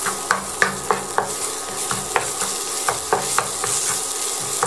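Wooden spatula scraping and tapping on a nonstick frying pan in repeated short strokes. It is stirring curry paste and shrimp paste over a steady sizzle of hot oil, frying the pastes until fragrant.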